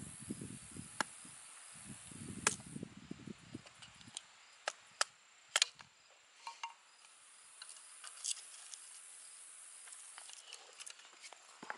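Hatchet splitting kindling on a wooden chopping block: several sharp, irregularly spaced cracks and knocks of the blade in the wood and the sticks splitting.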